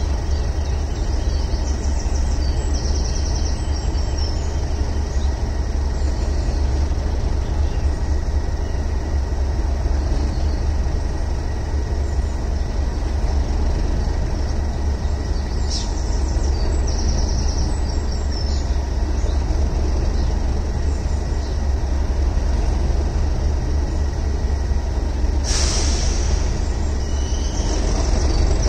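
English Electric Class 37 diesel locomotive's V12 engine idling with a steady low throb while it stands with its engineering train. There are brief high hisses of air a few times, and a louder burst of hiss near the end.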